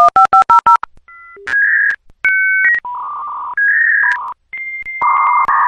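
Dial-up modem connecting: a quick run of touch-tone dialing beeps, then a sequence of pure electronic tones and a steady high answer tone near the end, the start of the modem handshake.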